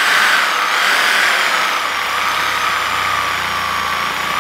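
Handheld electric saw with a long blade running steadily as it cuts into a liquid-nitrogen-frozen brownie, with a motor whine. A low pulsing joins in about halfway through.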